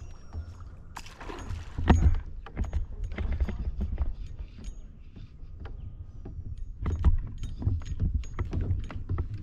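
Irregular knocks and clicks of gear being handled in a fishing kayak, over a low rumble, with a louder stretch of clatter about a second in and again near the end.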